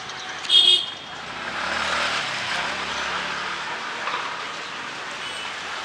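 A short high-pitched beep about half a second in, then a road vehicle passing on a rain-wet street.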